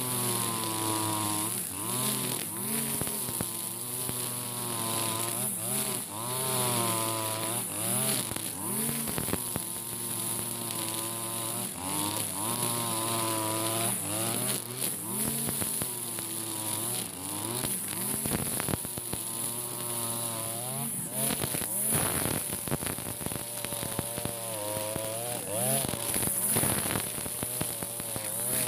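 Husqvarna 542RBS 42cc two-stroke backpack brush cutter running under load, its engine pitch rising and falling over and over as the cutting head is swung through thick, tall cogon grass.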